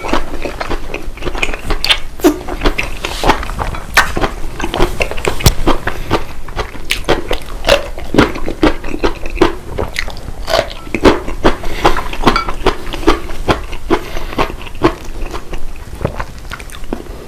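A person chewing food close to the microphone, with many sharp, irregular crunches throughout.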